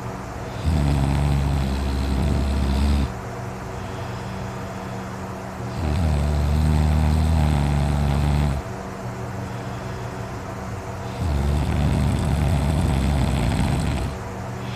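A person snoring loudly in deep sleep: three long, low-pitched snores of two to three seconds each, about five seconds apart.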